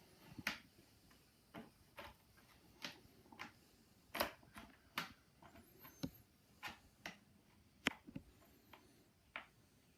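Irregular light clicks and taps of a long screwdriver working on the stock screw down inside a Stevens 820 shotgun's buttstock, about one or two a second and uneven in loudness.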